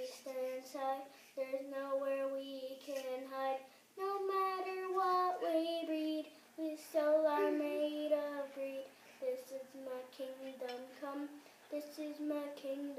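A young boy singing unaccompanied, phrases of held notes with short breaks between them.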